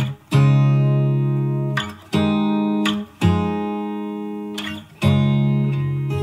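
Background music: guitar chords strummed and let ring, four chords a second or two apart, each fading slowly before the next.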